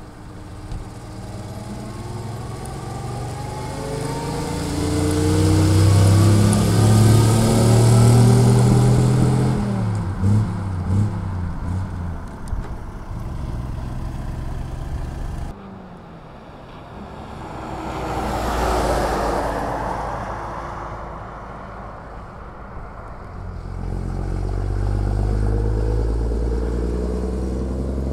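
Vintage truck engines driving past on a road: a red vintage fire truck's engine grows louder as it approaches, then drops in pitch and fades as it goes by. Another vehicle passes more quickly with a swell of road noise, and near the end a second old truck's engine hum grows louder as it approaches.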